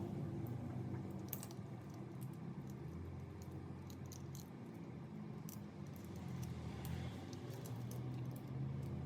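Light, scattered clicks and taps of small parts being handled during work on an RC car, over a low steady hum.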